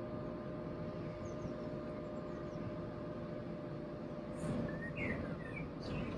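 Steady low hum of a car's engine, with a few short bird chirps over it from about four seconds in.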